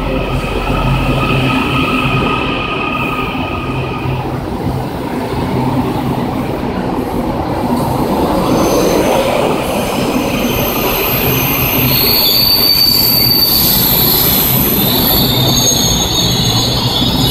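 Taiwan Railway electric multiple-unit commuter train running slowly along a station platform, its wheels rumbling on the rails. A steady motor whine stops about four seconds in, and high-pitched wheel squeal sets in during the second half and runs to the end.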